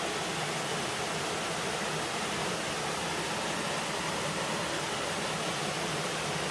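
Waterfall, water pouring and rushing in a steady, unbroken hiss.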